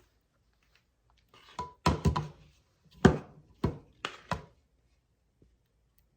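Kitchenware being handled: a run of about five knocks and thunks over three seconds, as a pan or utensils are set down and bumped on a counter, one with a short metallic ring.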